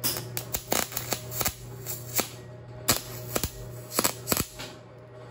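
Arc welder tack-welding 3/16-inch cold-rolled steel rod: a series of brief, sharp crackles in irregular clusters, stopping about four and a half seconds in.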